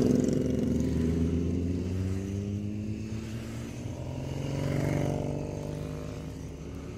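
Motorcycle engines as several bikes ride past one after another, their pitch gliding as they go by; the sound swells as one passes close about five seconds in, then fades.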